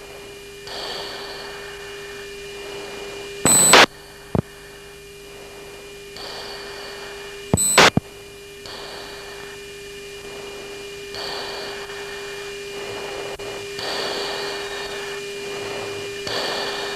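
Steady electronic tone on a US Air Force jet's cockpit audio recording, with a soft hiss that swells and fades every couple of seconds. Two short, loud clicks cut in, about four seconds apart.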